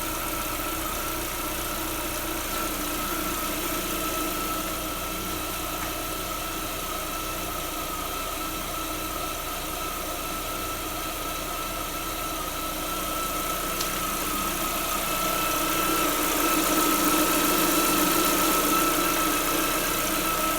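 Lada Vesta 1.6 engine idling with a steady high-pitched whistle from around the alternator, the whistle and engine getting a little louder near the end. The cause of the squeal is unknown to the owner.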